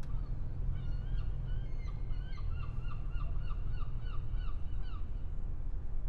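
A gull calling over a steady low harbour rumble: a quick run of short, arching calls, about three a second, starting about half a second in and stopping about five seconds in.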